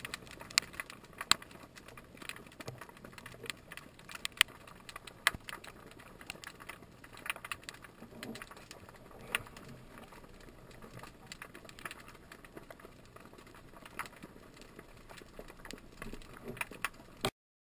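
Underwater recording through a camera housing: irregular sharp clicks and crackles, several a second, over a quiet hiss, stopping abruptly near the end.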